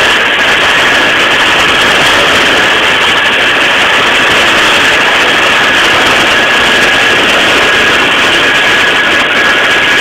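Tractor engine and New Holland 278 square baler running while baling hay: a loud, steady mechanical din with a constant high whine through it.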